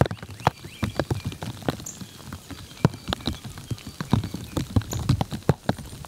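Precipitation pattering on hard surfaces during a snowstorm: irregular sharp ticks, several a second.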